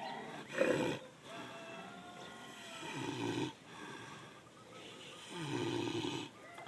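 Domestic pig snoring in its sleep: three rasping snores roughly two and a half seconds apart, the first short and the loudest.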